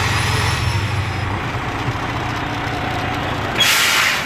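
Semi tractor's diesel engine pulling under load against the coupled trailer, then easing off about a second in; the coupling holds, so the fifth wheel is locked on the trailer's kingpin. Near the end a short, loud hiss of air from the truck's air brakes.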